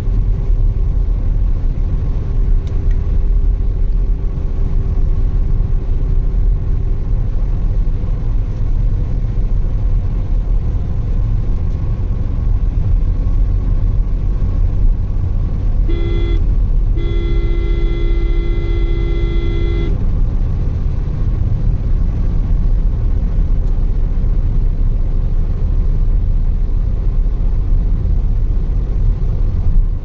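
Car cabin noise at highway speed: a steady low rumble of tyres and wind. About sixteen seconds in, a vehicle horn sounds twice, a short toot and then a longer blast of about three seconds.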